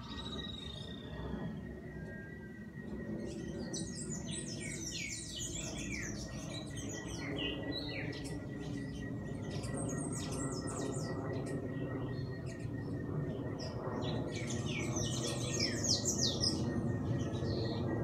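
Wild songbirds singing in bursts of rapid, high chirps and twitters, densest about four to eight seconds in and again near the end, over a thin steady high tone and a low background hum.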